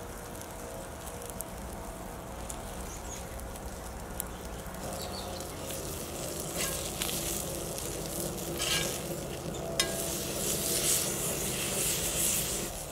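Muskrat meat sizzling in a cast-iron skillet over a campfire. The sizzle gets louder in the second half as a spatula presses and turns the pieces, with a few sharp scrapes or clicks.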